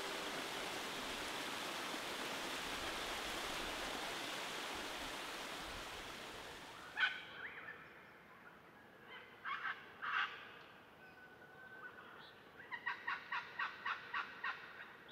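Rushing river water running over rocks, fading over the first seven seconds. It gives way to birds calling: a sharp call, two more calls a few seconds later, then near the end a quick run of about a dozen repeated notes.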